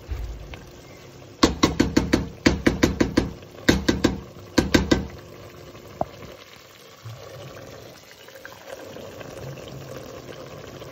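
Wooden spatula knocking against the side of a stainless steel pot in four quick runs of sharp strikes, the pot ringing briefly with each, while a pot of spinach and vegetables is stirred. After about five seconds the knocking stops and the simmering greens give a low steady hiss.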